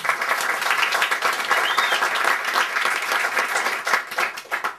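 Audience applauding, many hands clapping at once, the clapping thinning out and stopping near the end.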